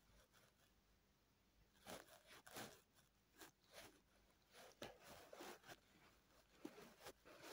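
Near silence broken by faint, irregular short rustles and soft clicks, about a dozen of them, thickest in the middle.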